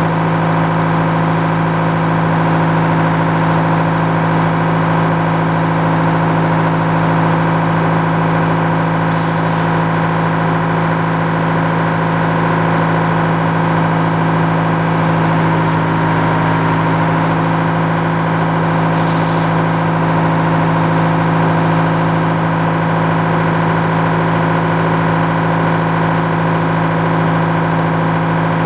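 Engine driving an old Frick sawmill, running steadily at an even speed.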